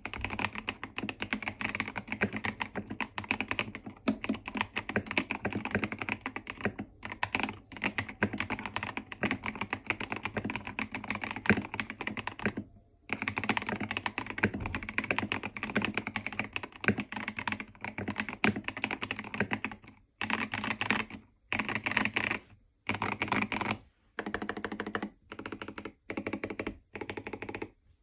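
Mechanical keyboard with Gazzew Boba U4T tactile switches being typed on: fast continuous keystrokes, a brief pause about halfway, then short bursts of typing separated by short gaps in the last third.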